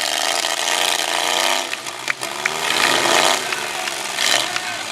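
Several demolition derby trucks' engines revving hard and unevenly, their pitch rising and falling, with a few sharp knocks about two seconds in.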